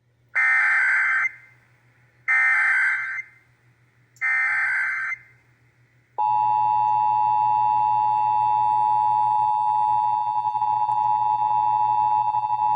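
Emergency Alert System header: three short bursts of SAME digital data tones, about two seconds apart, then, about six seconds in, the steady two-tone EAS attention signal (853 and 960 Hz sounded together) starts and holds, opening a Required Monthly Test.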